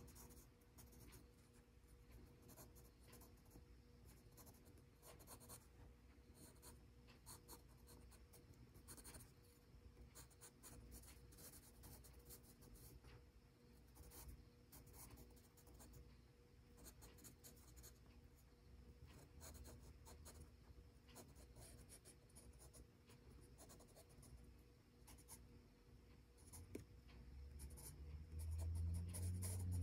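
Faint scratching of a Faber-Castell Pitt Graphite Matt HB pencil shading on gray sketchbook paper in many short strokes. Near the end a low hum swells up louder.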